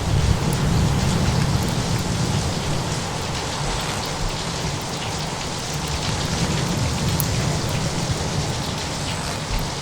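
Steady rain hiss with a low rumble of thunder that swells right at the start and eases off over the next few seconds.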